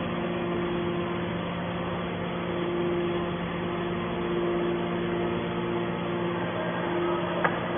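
Mini can baler's hydraulic power unit running with a steady hum, with one short click near the end.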